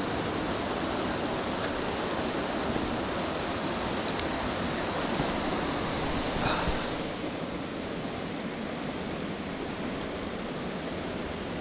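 Steady rush of a waterfall and its beck, a dense even hiss of falling and flowing water. A brief rustle sounds about six and a half seconds in, after which the rush is a little softer.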